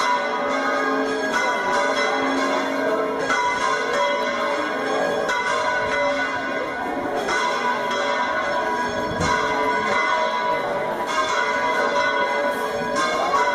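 Church bells ringing continuously, struck again and again at an irregular pace, each strike renewing a sustained ringing.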